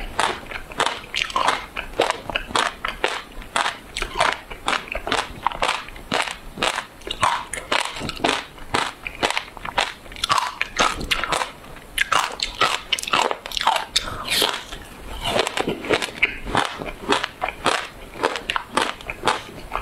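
Frozen passion fruit pulp and seeds being bitten and chewed with the mouth close to a clip-on microphone: a quick, irregular run of sharp icy crunches.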